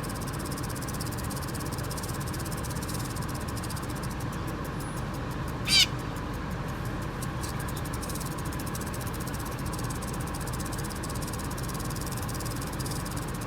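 A corella gives a single short, harsh screech about halfway through, over a steady hiss.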